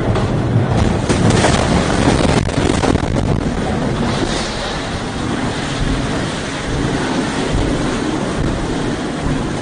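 Strong wind and sea heard from a ship's bridge: a loud, steady rush, with wind buffeting the microphone. A few sharp knocks come between about one and three seconds in.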